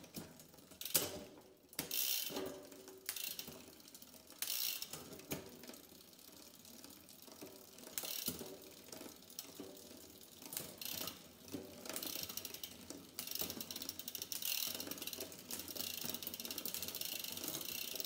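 A SRAM Eagle 12-speed drivetrain turned by hand in a work stand: the chain runs over the cassette and rear derailleur pulleys with irregular clicks, and the rear freehub's pawls ratchet, the clicking growing denser in the last few seconds. The chain is worn past its limit.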